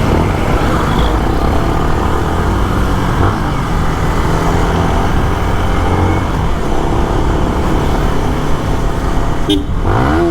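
Street traffic: motor vehicles running, with horns sounding, cut off abruptly near the end.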